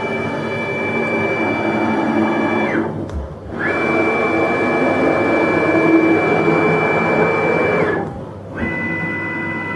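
SM6090 CNC router's stepper motors driving the axes in three separate moves: each a steady whine that slides quickly up in pitch as it starts and down as it stops, with short gaps between, the last move a little lower in pitch.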